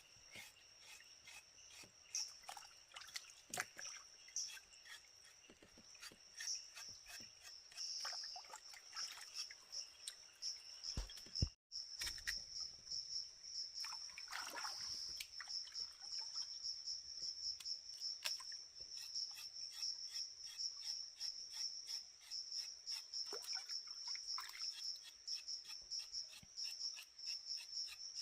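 Forest insects trilling in a steady high-pitched, rapidly pulsing chorus, with scattered light clicks and knocks. The sound cuts out briefly about twelve seconds in and returns louder.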